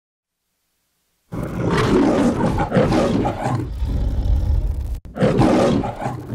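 A lion-like roar in the manner of the MGM logo's roar, sounding twice: the first starts about a second in and lasts nearly four seconds, and the second follows a brief break near the end.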